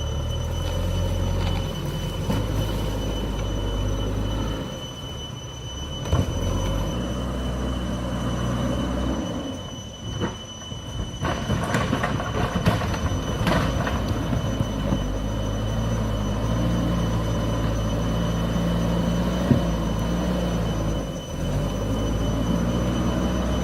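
JCB backhoe loader's diesel engine running under changing load, its pitch stepping up and down as the machine works, with a steady high-pitched whine over it. Several sharp knocks come in the middle, as the bucket strikes rock and dirt.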